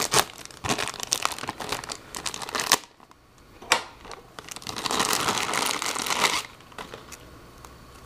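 Clear plastic bag crinkling as it is handled and pulled open. There are dense crackles for about the first three seconds, one sharp crackle near four seconds, then a longer rustle of about a second and a half.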